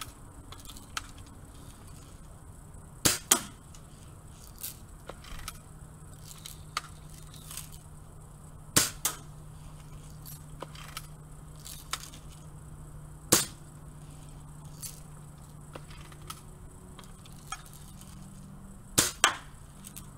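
Daisy Red Ryder spring-powered BB gun firing: four sharp snaps about five seconds apart, two of them followed at once by a second snap, with fainter clicks between.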